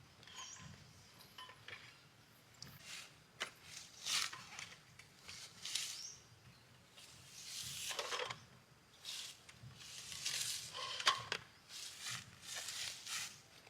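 Irregular handling noises: short rustles and scrapes with a few sharp clicks and light clinks.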